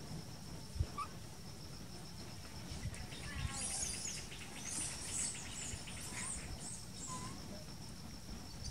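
High, evenly pulsed insect chirring runs steadily throughout. Over it, a cluster of quick, high chirping calls comes from about three to six seconds in.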